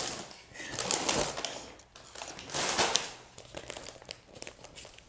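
Dark packing paper rustling and crinkling in a cardboard box as a potted plant is unwrapped and lifted out, in several short bursts, the loudest about a second in and near the three-second mark, with lighter crackles after.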